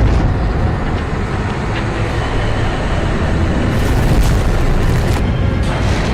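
A loud, steady deep rumble with a noisy hiss over it.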